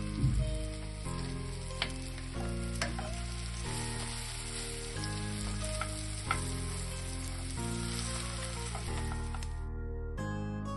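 Food sizzling as it fries in hot oil, a steady hiss with a few sharp clicks, over background music with slowly changing chords. The sizzle cuts off suddenly near the end, leaving the music.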